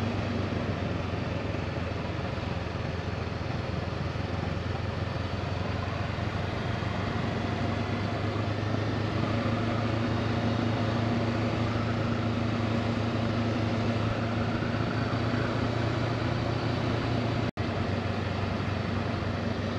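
Honda CB500X parallel-twin engine running steadily while the motorcycle is ridden, a low hum under a steady rushing noise. The sound cuts out for an instant near the end.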